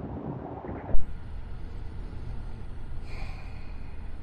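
Steady low rumble of traffic on the road bridges overhead, with a single sharp thump about a second in and a brief higher tone near three seconds.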